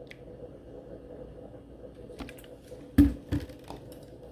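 Kitchenware handled while a spoonful of milk is added to beaten eggs in a glass dish: a few light clicks, then a sharp knock about three seconds in and a softer one just after.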